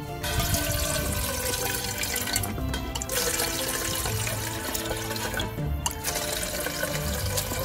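Water streaming from a pump-action airpot into a collapsible silicone kettle, in three spells with short breaks between them, over background music.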